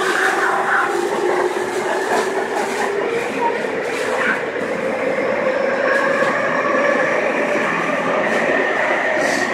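Tobu 30000 series electric train under way, its traction motors and inverter whining in steady tones that slowly rise in pitch as it picks up speed, over running noise, with a few clicks of the wheels over rail joints.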